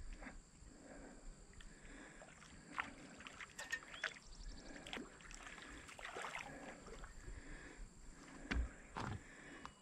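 Faint splashing of a hooked catfish thrashing at the pond surface as it is played in on a rod, with a few scattered clicks and knocks, two of the louder ones near the end.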